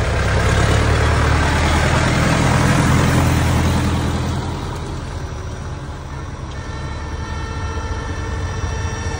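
Farm tractor's diesel engine running as it drives past close by, loudest in the first few seconds and then fading as it moves away.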